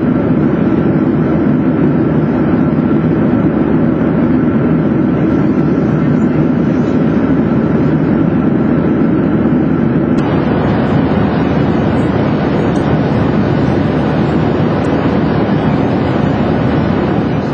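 Steady roar inside the cabin of a Boeing 737-800 at cruise: engine and airflow noise. About ten seconds in, the noise turns brighter and hissier.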